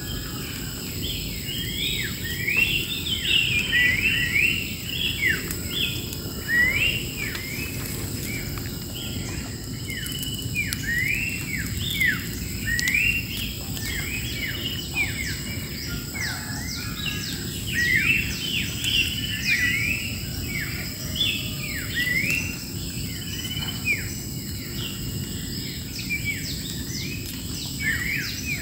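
A chorus of wild songbirds chirping and calling over one another in quick, overlapping short notes, with a steady high-pitched hum and a low rumble underneath.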